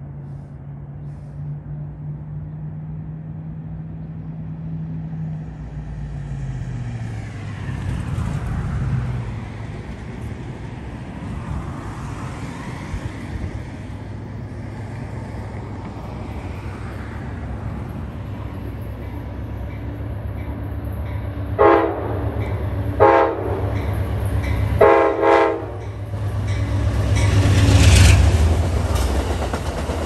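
A freight train rumbling past with wheels clacking on the rails, while an Amtrak passenger locomotive on the next track sounds its horn in a quick series of short blasts about two-thirds of the way through, the last two close together. The passenger locomotive then passes underneath, its rumble rising to the loudest point near the end.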